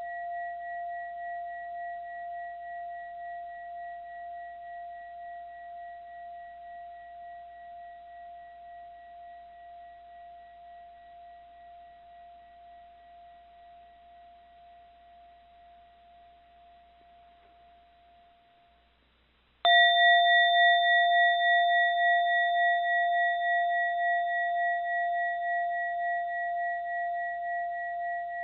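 A mindfulness bell rings with a long, pure tone that dies away slowly with a gentle wavering swell and fades out about two-thirds of the way through. It is then struck again and rings out loudly, wavering as it begins to decay.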